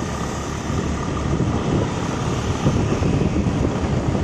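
Wind buffeting the microphone outdoors, a gusty low rumble that gets a little stronger about halfway through.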